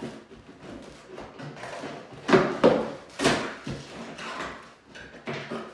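Cardboard box being opened by pressing in its push-in tabs and lifting the lid: a run of sharp cardboard pops, knocks and scraping, the loudest a little after two and after three seconds in.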